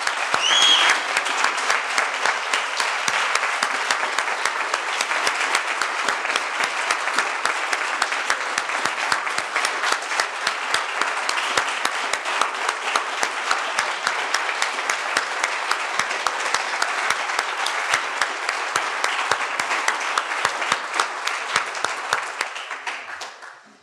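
Audience applauding steadily for about twenty seconds, with a short rising whistle about a second in. The clapping dies away near the end.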